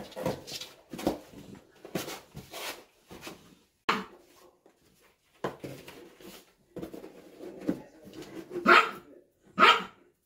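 A dog barks several times, the loudest two barks coming close together near the end, over the scrape and rustle of cardboard boxes being handled and fitted together.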